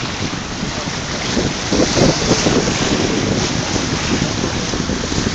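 Wind buffeting the microphone in gusts, a rough, loud rush of noise that grows stronger about a second and a half in.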